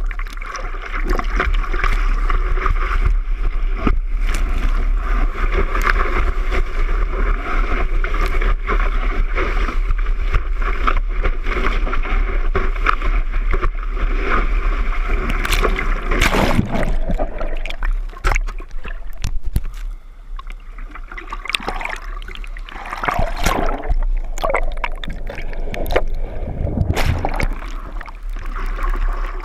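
Heavy ocean surf: a steady rush of breaking waves with wind rumbling on the microphone, easing off for a few seconds past the middle before building again.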